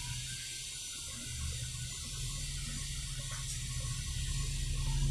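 Steady background hiss with a low hum underneath: quiet room tone with no distinct event.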